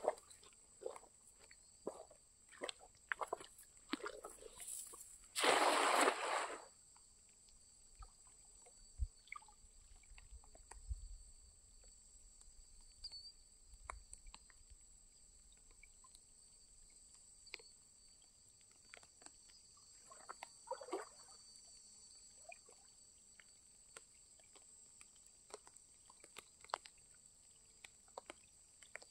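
A cast net is thrown over shallow lake water and lands about five and a half seconds in with one short, loud splash. After it come quieter sloshing and scattered drips and taps as the net is drawn back in through the water, with a smaller splash near twenty seconds.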